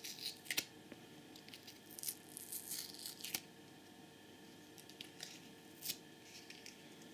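Faint, scattered crackles of waxy, masking-tape-like insulating tape being peeled and unwound from a small switch-mode power supply transformer's bobbin.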